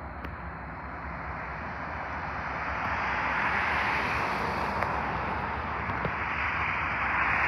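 An approaching train, heard as a steady rushing noise that grows louder over the first few seconds and then holds.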